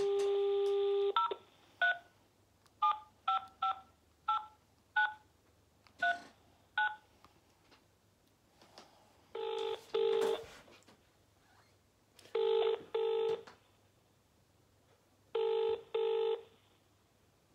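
Telephone call being placed on a cordless phone handset: a dial tone for about a second, then about ten keypad tone beeps as the number is dialled. The line then rings out with three double-ring pairs (brrr-brrr) of ringback tone, waiting for an answer.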